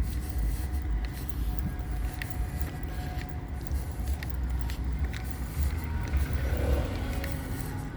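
A car driving: a steady low rumble of engine and road noise, with a few faint clicks.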